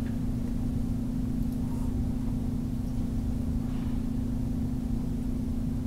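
Steady low hum with a rumble beneath it, the constant background noise of the recording, with no other sound on top.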